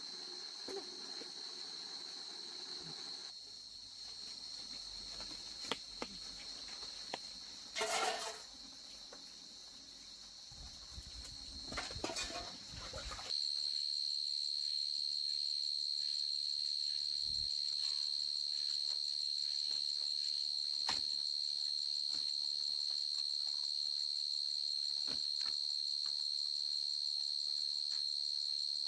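Insects, likely crickets, trilling in one steady high-pitched drone that grows louder about a third of the way in, with a few brief knocks near the start of it.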